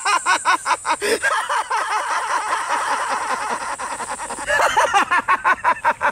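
A man laughing loudly and at length, a fast run of "ha" pulses about five a second that eases off and then grows loud again about four and a half seconds in.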